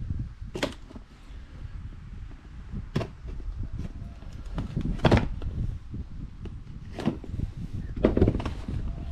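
A small cardboard box being slit open with a hand tool and handled on a workbench: rustling and scraping of cardboard, with about five sharp knocks and taps as the box is turned over and set down.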